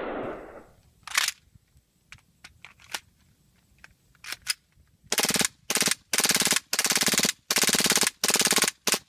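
Airsoft gun fire: a few scattered single shots, then five short rapid full-auto bursts in quick succession.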